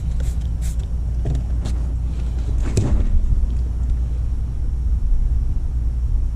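A steady low rumble, with a few light clicks and taps in the first three seconds.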